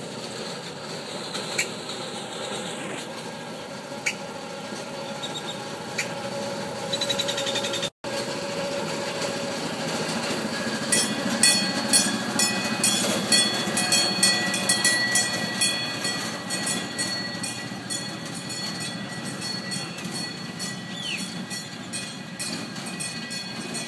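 Small rubber-tyred tourist road train driving past at low speed, its motor rumbling and growing louder as it comes close. About halfway through a rapid, repeated ringing starts, loudest for several seconds as the carriages pass and then fading as the train moves away.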